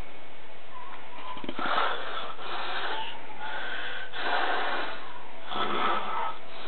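Snoring: four noisy, drawn-out breaths in a slow, even rhythm about a second and a half apart.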